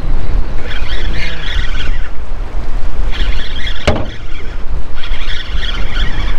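Fishing reel buzzing in three bursts of about a second each, about a second apart, while a hooked trout is played on the line. There is a heavy rumble of wind on the microphone and a single sharp click just before four seconds in.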